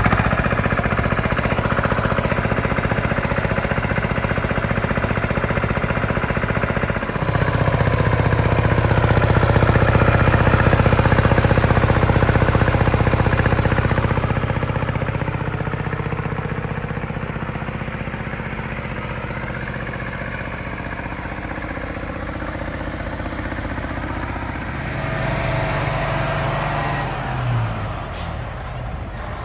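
Detroit Diesel 6V92TA two-stroke V6 diesel of a logging truck running with a rattly, jackhammer-like note. About seven seconds in its sound steps up and grows louder for several seconds, then eases off, with a brief swell and a quick drop near the end.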